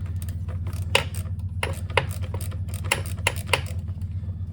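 Irregular light clicks and clinks of tools and plastic parts being handled while the purge valve is worked loose, over a steady low hum.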